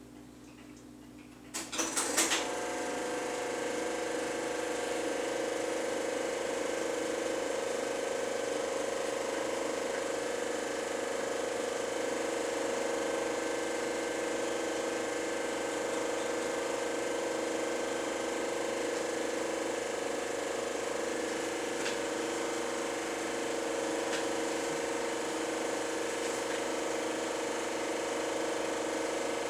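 Super 8 film projector starting with a few clicks about two seconds in, then running steadily with an even mechanical whir and hum.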